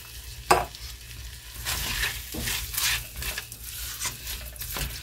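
A spatula stirring and scraping diced tomatoes and chorizo around a nonstick pot while the mixture sizzles. There is one sharp knock about half a second in, and a few lighter clicks later on.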